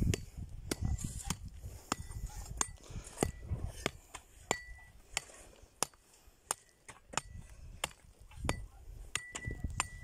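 Small short-handled hand hoe chopping into dry, stony soil to sow corn: repeated sharp chops about two a second, some ending in a short metallic clink as the blade hits stones. A low wind rumble runs underneath.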